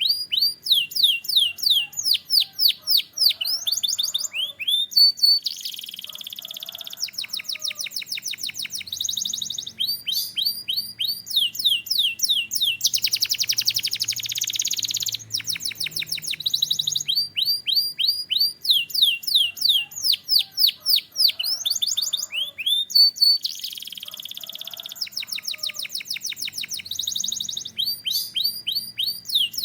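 Domestic canary singing continuously. It sings rapid rolls of quick down-slurred whistled notes, alternating with harsher buzzy trills, and the same run of phrases comes round again about every 18 seconds.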